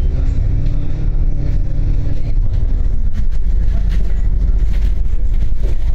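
Double-decker bus in motion, heard from inside the upper deck: a heavy steady rumble, with a faint engine whine that rises and then falls over the first three seconds. Scattered sharp ticks and rattles come in from about halfway through.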